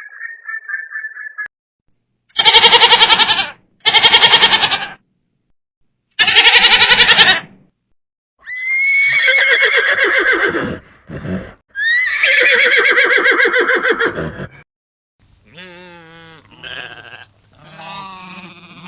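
Goats bleating: three loud, short, quavering bleats, then two longer drawn-out ones and some fainter calls near the end. A brief warbling tone is heard at the very start.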